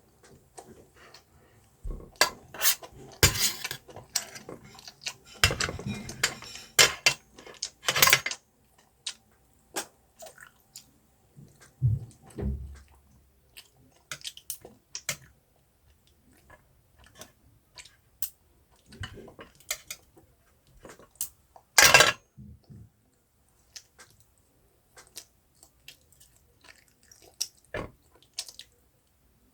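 A person eating: cutlery clicking and scraping against a dish, with chewing, in irregular clicks and short clatters. The loudest clatter comes about three quarters of the way through.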